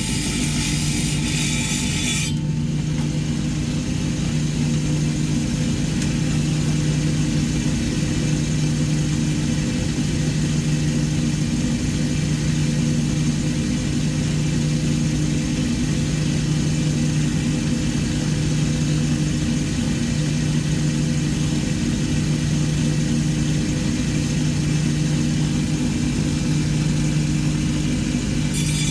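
Lapidary rock saw running steadily with a low motor hum. A higher hiss over it drops away about two seconds in and returns near the end.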